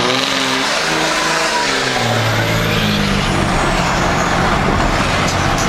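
Cummins straight-six turbo diesel in a Dodge pickup running under way, loud and steady, its engine note shifting in pitch as the truck is driven.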